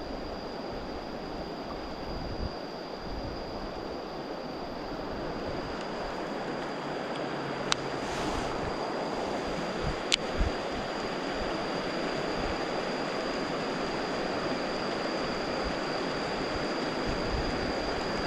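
Steady rushing outdoor noise with a constant thin high tone over it, and two sharp clicks, one about eight seconds in and one about ten.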